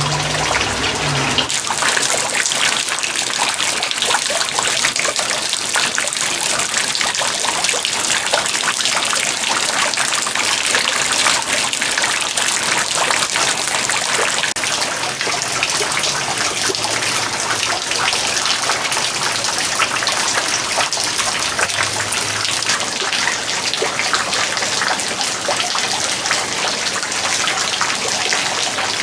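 Water running in a steady rush, with no break for the whole stretch.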